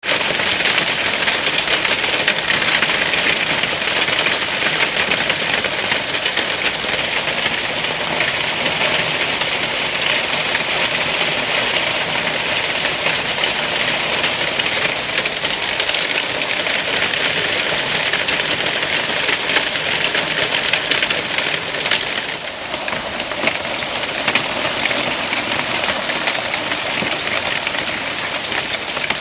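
Heavy hail pelting a shingle roof and pavement: a loud, steady clatter of countless small impacts, easing slightly about 22 seconds in.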